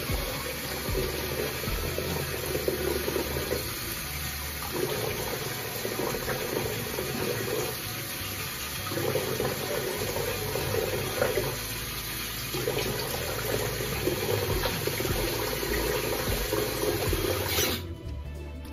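Bathroom sink tap running as shaving soap is rinsed off the face, with the water cutting off shortly before the end.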